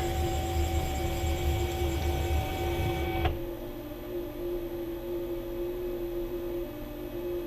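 CNC 6040 router's stepper motors jogging the gantry along the Y axis, a whining hum that stops suddenly about three seconds in. The spindle keeps running with a steady tone throughout.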